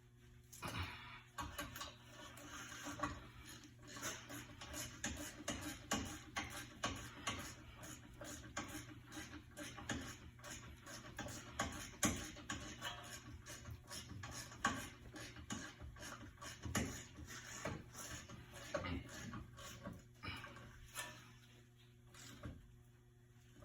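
Irregular clicks, taps and light clatter of metal brake parts and hand tools being handled, over a steady low hum.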